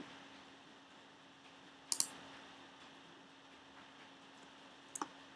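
Quiet room tone with a faint steady hum, broken by sharp computer clicks: a quick pair about two seconds in and one more near the end.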